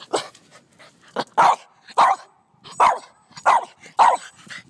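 Small long-haired dog barking repeatedly, a run of about seven short, sharp barks roughly every half second, defensive barks aimed at ants in the lawn.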